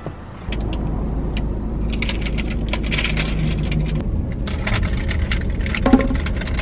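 Small hard objects clicking and clinking with some rustling, over a steady low rumble that sets in about half a second in.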